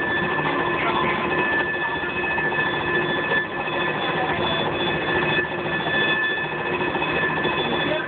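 Inside a Muni light rail vehicle moving slowly: a steady, high-pitched electrical whine made of several even tones over a running rumble, with faint voices underneath.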